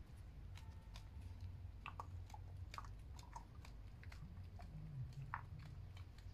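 Chinese Crested dog chewing food, with short crisp crunches coming irregularly, the loudest about two seconds in and again about five seconds in.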